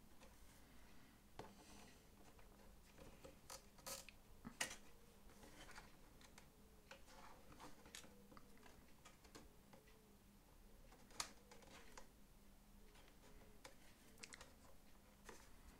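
Quiet handling noises of small dollhouse skirting-board pieces being fitted together by hand: scattered light taps, clicks and scrapes, with the sharpest clicks about four and a half seconds and eleven seconds in.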